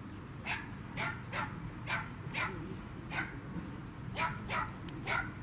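A dog barking in a quick series of short, high yaps, about two a second, with a brief pause midway.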